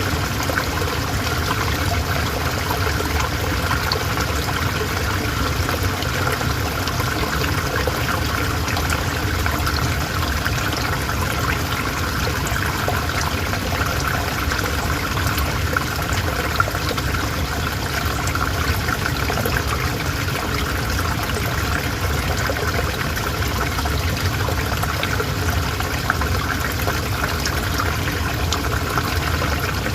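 River water flowing steadily, a continuous even rush with small splashes and trickles throughout.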